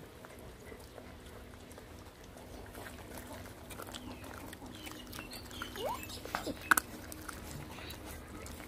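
Several puppies eating rice off a rubber mat: chewing, lapping and smacking, with many small clicks. A short rising whine comes just before six seconds in, and a sharp click shortly after it is the loudest moment.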